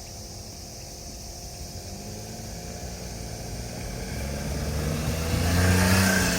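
A motor vehicle approaching and passing close by: its engine and tyre noise build steadily and peak just before the end.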